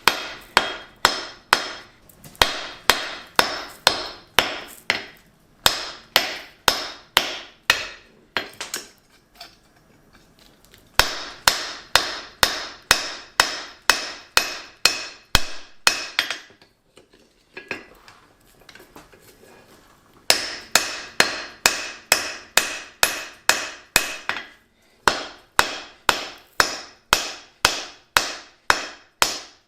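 Blacksmith's hammer striking a hot 4140 steel block on an anvil, taking the corners off to prevent fish-mouthing. Steady blows about two to three a second with a metallic ring, in three runs broken by two short pauses, the first about eight seconds in and the second about sixteen seconds in.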